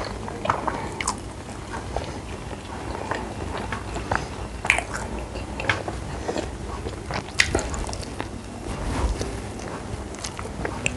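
Close-miked eating: a person biting and chewing food, with wet mouth sounds and irregular sharp crunchy clicks.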